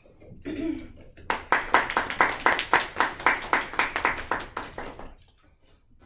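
A small audience of classmates clapping, sharp distinct claps at about four a second for three to four seconds, then stopping.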